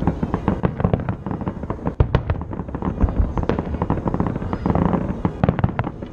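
Aerial fireworks shells bursting in quick, irregular succession: a dense run of bangs and crackles, with one especially sharp bang about two seconds in.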